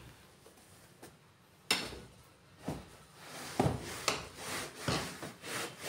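Damp cloth wrapped over a pan lid scrubbed across a fabric sofa cushion in a series of irregular rubbing strokes, with a sharp knock about a second and a half in.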